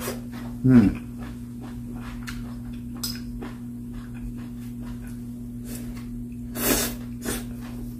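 A person eating with chopsticks: quiet chewing with small clicks, a short 'mm' under a second in, and a brief slurp of stir-fried pepper strips near the end, over a steady low hum.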